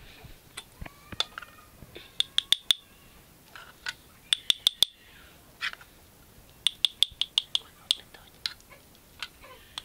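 Metal spoon clinking and tapping against a small cup and the rim of a metal pot as thick maize porridge is scooped and packed into the cup: sharp ringing taps in quick clusters of three to five, repeated several times.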